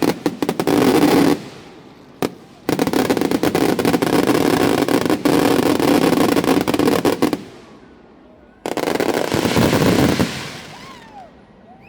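Aerial fireworks going off in rapid-fire barrages of bangs and crackling: a short volley, a single bang, a long dense volley of about five seconds, then a last loud barrage that fades out.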